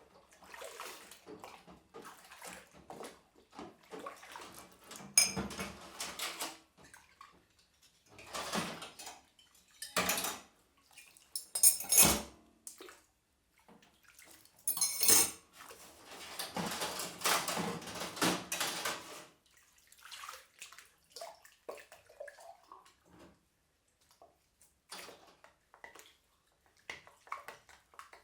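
Dishes being washed by hand in a kitchen sink: water splashing and sloshing, with plates, glasses and cutlery clattering and knocking against each other. A few sharp, loud clanks stand out in the first half, then a longer stretch of continuous splashing. Toward the end the sound thins to occasional quieter clinks.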